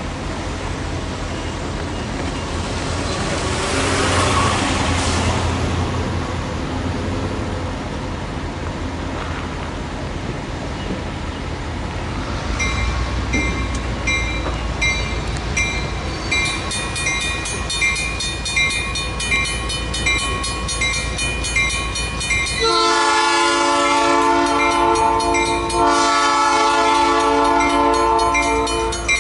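Diesel freight locomotive approaching at low speed with its engine rumbling. About halfway in its bell starts ringing at a steady beat, and near the end its multi-chime horn sounds two long blasts.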